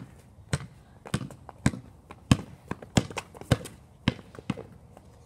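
Basketball being dribbled on pavement, about two bounces a second, each a sharp thud, stopping a little after four seconds in. Fainter taps and clicks come in between.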